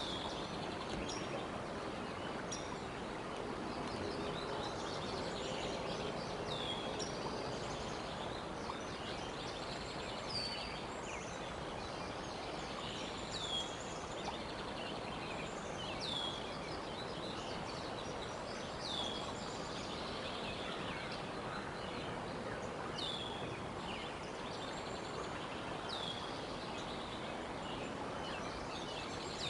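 A bird calling a short, high note that falls in pitch, repeated every few seconds, over a steady outdoor background hiss.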